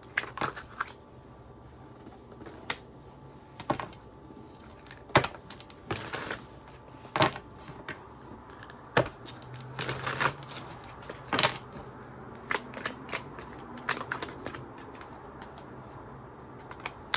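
Tarot cards being handled and laid down on a table: irregular sharp taps and slaps, about a dozen, some in quick clusters.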